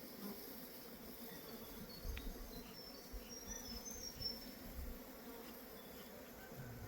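Honeybee swarm buzzing: a faint, steady hum of many bees in flight, with a few low bumps along the way.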